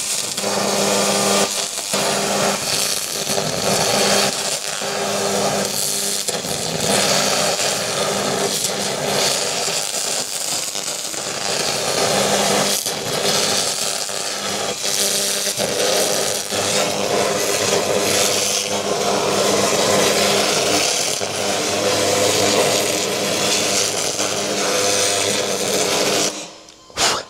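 xTool MetalFab 1200-watt laser cleaning head at full power stripping paint off a steel car wing: a steady loud hiss and crackle over a constant low hum. It cuts off shortly before the end.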